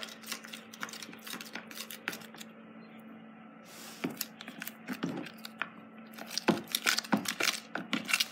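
A spoon stirring glue and shaving cream in a clear plastic tub, mixing a fluffy slime base: irregular scrapes and clicks of the spoon against the tub, sparser around the middle and busiest near the end.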